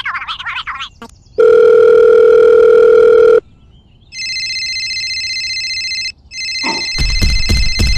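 Telephone sound effects: a loud steady single-pitched tone for about two seconds, then an electronic phone ring, a high trill heard twice with a short break between. A few knocks come near the end, over the second ring.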